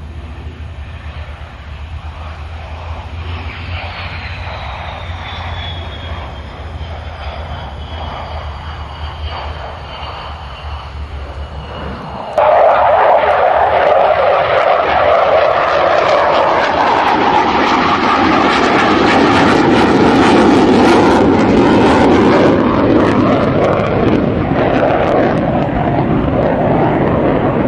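F-15C Eagle's twin Pratt & Whitney F100 turbofan jet engines at takeoff power. At first a high whine falls steadily in pitch as the jet lifts off and moves away. About twelve seconds in comes a sudden jump to a much louder, rough jet roar, which stays loud to the end.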